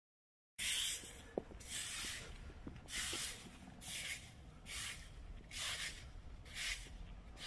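Footsteps scuffing on a wet stone path at a slow walking pace, about one step a second, over a faint low wind rumble on the microphone. The sound cuts in abruptly just after the start.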